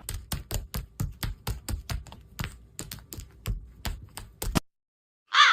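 A rapid, uneven series of sharp clicks, about four or five a second, like fast typing, that stops abruptly about four and a half seconds in. Near the end a harsh bird call begins.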